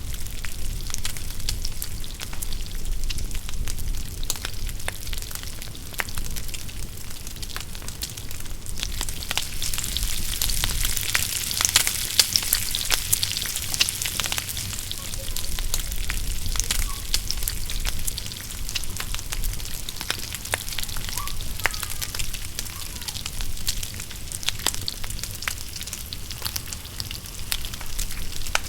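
Wood fire crackling in a fire pit, with sharp pops throughout. A louder hiss swells from about nine to fifteen seconds in.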